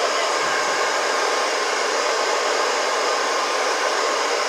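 Steady whooshing of a small electric blower running without a break, with a faint motor hum in it.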